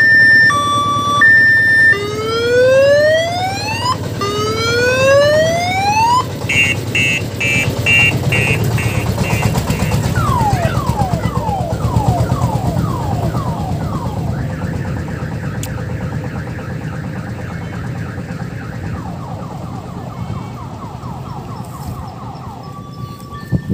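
Odong-odong mini-train's electronic siren cycling through its tones: a two-tone beep, two slow rising wails, rapid pulsed beeps, a run of falling chirps, then fast warbles, first higher and then lower. The vehicle's engine rumbles underneath.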